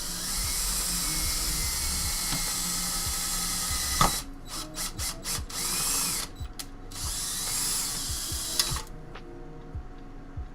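Power drill driving a self-tapping screw into the metal PC case: a steady run for about four seconds, a sharp click, then a series of short stop-start spurts and runs that stop about nine seconds in.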